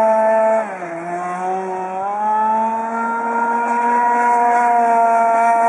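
Petrol-engined radio-controlled racing boat running at high revs with a steady, high engine whine. About half a second in, the revs drop, then climb back up over the next couple of seconds and hold steady.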